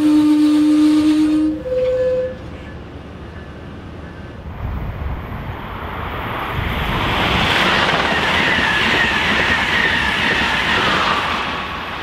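A train horn sounding, cutting off a second and a half in, with one short higher blast just after. Then a passing train: its rumble builds to a peak with a faint high whine over it, then fades.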